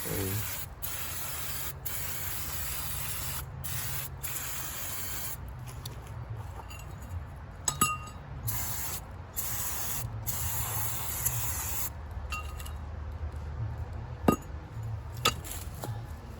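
Aerosol can of brake cleaner spraying in a series of hissing bursts with short breaks, onto rear hub and brake parts. A few light metallic clinks come in the second half.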